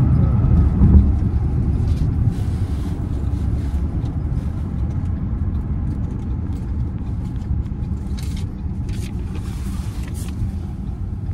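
Steady low road and engine rumble of a moving car, heard from inside the cabin, with a few faint brief clicks over it.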